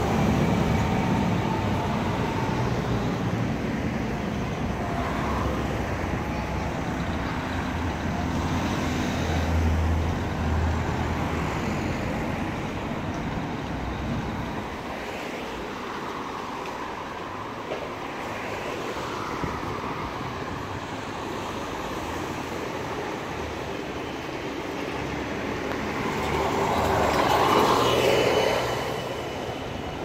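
City street traffic: vehicles running with a low engine hum through the first half, then one passing close, swelling and fading near the end.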